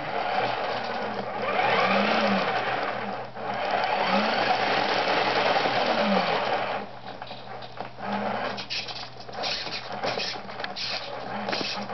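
Small electric drive motor and gears of a hacked RC car whirring, its pitch rising and falling as the speed commands from the watch change. After about seven seconds it drops quieter, with irregular clicks.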